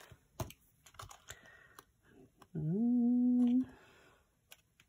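Light, scattered clicks and taps of small cardstock pieces being handled. About two and a half seconds in, a woman hums a one-second 'hmm' that rises and then holds steady; this is the loudest sound.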